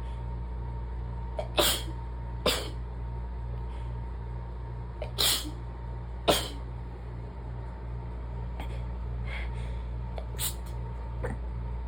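Rapid, stifled sneezes in an allergy fit: four short, sharp sneezes in quick pairs, then several fainter ones near the end.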